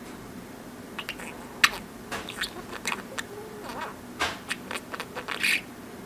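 Budgerigar chattering without words: a run of irregular quick clicks and short chirps.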